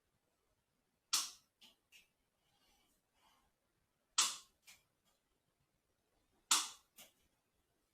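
Three sharp snaps about three seconds apart, each followed by one or two faint ticks, from hands-on work with tools, between stretches of near quiet.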